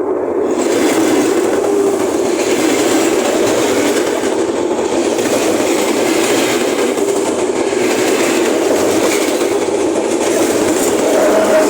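A train rolling by at close range, heard from beneath it: a loud, steady rumble and rattle of wheels and railcars that holds without a break.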